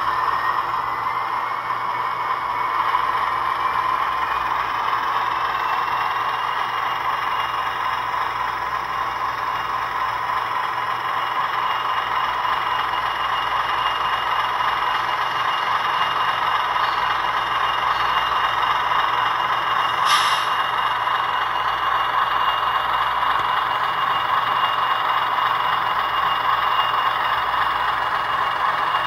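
SoundTraxx Tsunami2 decoder's ALCO RS-1 diesel engine sound playing through a model locomotive's small speaker as the model rolls slowly along the track: a steady engine drone with a high whine that rises in pitch over the first few seconds and then holds. A single sharp click about two-thirds of the way through.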